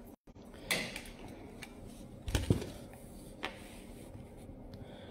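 Handling noise from a phone held in the hand: three soft rubs and knocks about a second apart, the middle one a low thump.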